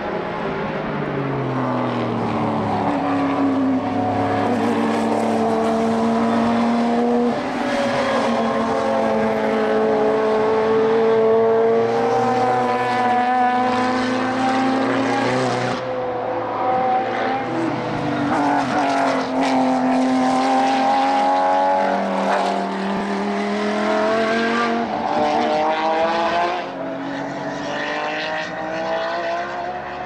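Several race car engines accelerating hard as the cars pass in a race, their notes climbing through the gears with a drop at each upshift, several cars overlapping.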